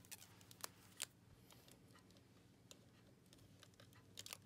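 Near silence with a low steady hum, broken by a few faint, sharp clicks from hands handling a plastic doll's arm joint while twisting a clear elastic band into it: two clicks in the first second and a couple more near the end.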